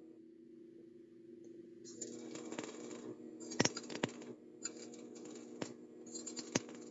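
Stick (arc) welding: the electrode arc crackling in irregular bursts with sharp pops as the rod is run along the workpiece, growing clearly audible about two seconds in.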